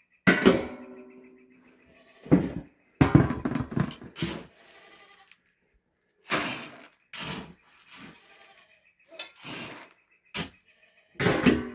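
Goats bleating repeatedly, a series of separate calls with short pauses between them.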